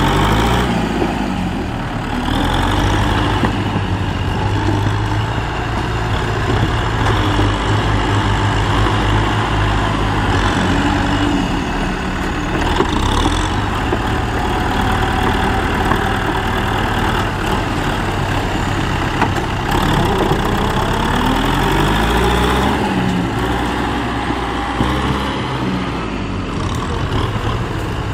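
Two Kubota farm tractors' diesel engines running as they push earth with front dozer blades, the engine note rising and falling as the load changes, most plainly about twenty seconds in.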